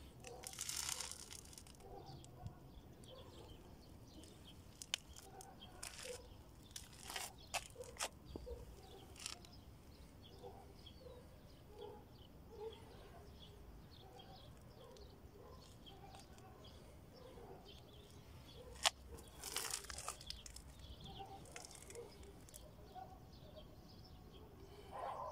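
Quiet outdoor ambience: faint bird chirping, with a few short rustles and sharp clicks scattered through it.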